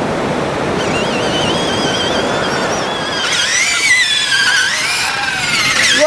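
Electric motor and gears of a toy remote-control monster truck whining high, the pitch wavering and gliding up and down as it is throttled over wet sand, over the steady hiss of surf.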